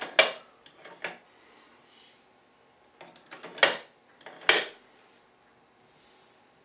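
Bench-mounted powder measure having its handle worked to throw a powder charge: sharp metal clacks, two near the start about a second apart and two more around the middle, with lighter ticks between. Near the end there is a short soft hiss of powder poured into the scale pan.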